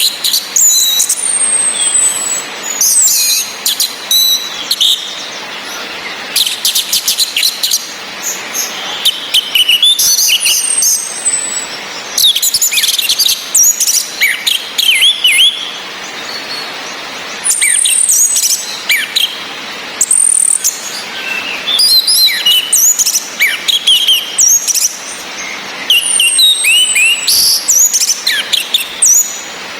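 Orange-headed thrushes calling: a female's sharp, high 'ngecis' calls, with thin whistles falling in pitch and quick chirps in bursts every second or two. A steady hiss of rain runs behind them.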